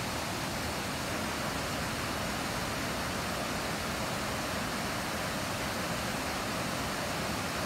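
Rushing whitewater of a rainforest creek pouring over rocks: a steady, even rush of water.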